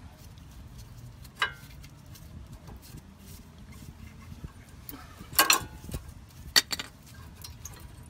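Metal clinks and scrapes of worn brake pads being worked out of a Honda Civic's disc brake caliper bracket by hand: a short ringing clink about a second and a half in, a cluster of sharp clatters just past the middle, and another clink about a second later.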